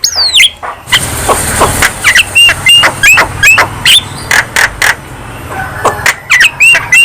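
Javan myna (jalak kebo) singing: a rapid, varied run of sharp clicks and short whistled notes that rise and fall, with a high falling whistle at the start and a harsh rasping stretch about a second in.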